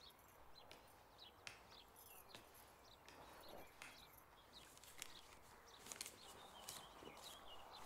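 Near silence: faint background ambience with scattered faint high bird chirps and a few soft clicks.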